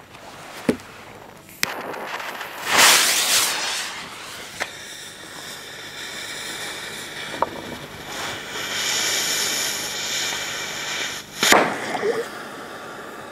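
A 'Black Death' firecracker from Pyro Moravia fizzling out ('verpufft') instead of going off with a full bang. There are a few small clicks, a loud rushing burst about three seconds in and a long hiss, then one sharp crack near the end, the loudest sound.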